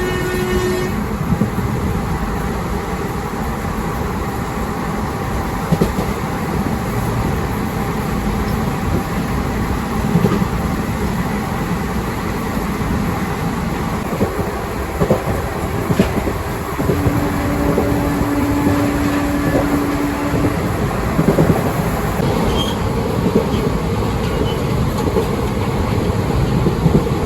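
Passenger express train running at speed, heard from on board: a steady loud rumble and rattle of wheels on rails, with scattered sharp knocks. A single held tone sounds for a few seconds a little past the middle.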